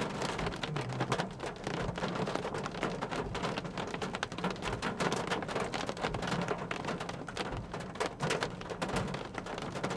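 Steady rain from a thunderstorm, with a dense run of sharp, irregular raindrop hits.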